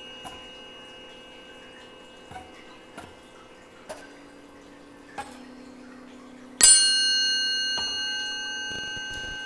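Tuning forks in a wooden stand struck with a mallet, ringing in steady, pure tones: several light taps, then one much harder strike about two-thirds of the way through that rings out loudest and slowly fades.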